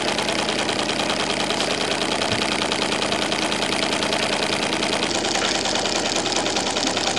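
Model twin-cylinder marine steam engine running steadily on live steam, with a rapid, even beat. It runs on about 30 pounds of boiler pressure with the steam valve only cracked open.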